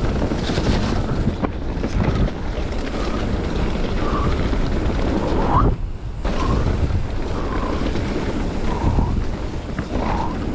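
Enduro mountain bike riding down a dirt forest trail over leaves: wind buffets the microphone over the rumble and rattle of the bike on the ground, with short squeaks several times. The noise dips briefly just past the middle.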